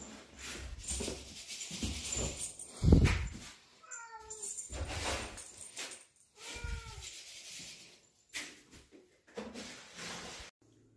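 Long-haired ginger cat meowing twice, two short meows about two and a half seconds apart, among thumps and rustling on the bedspread as it plays with a feather wand toy. A loud thump comes about three seconds in.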